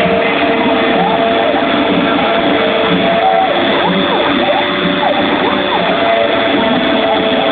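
CNC machine running, its stepper motors whining in short glides that rise and fall in pitch as the axes speed up and slow down, over a steady hum of several tones.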